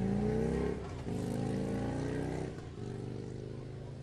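An engine running with a steady pitched hum that rises slightly in the first second, briefly drops off twice, and then holds steady.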